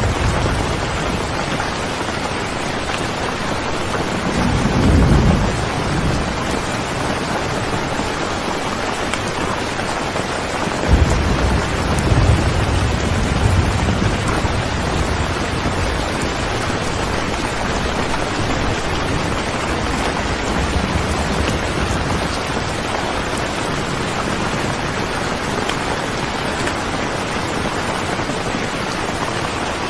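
Steady rain with thunder: a low rumble about five seconds in, and a sharp crack about eleven seconds in that rumbles on for several seconds.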